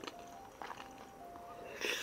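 Soft background music, a melody of a few held notes, with faint clicks and a short louder burst of noise near the end.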